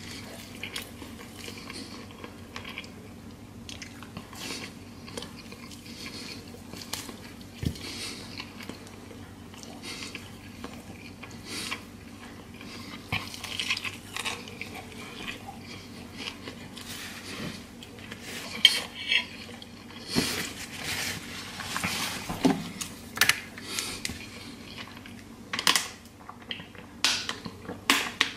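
A person eating air-fried chicken and vegetables close to the microphone: chewing with scattered clicks and clinks of dishes and cutlery. The sounds come thicker and louder in the second half.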